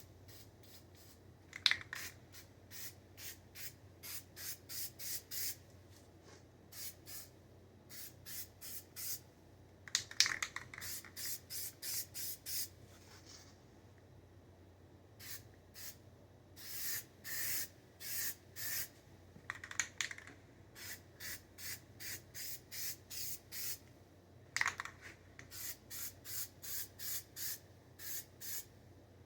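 Spray paint hissing in rapid short bursts, two to three a second in runs broken by pauses, with a few sharp clicks, as the mower deck is painted.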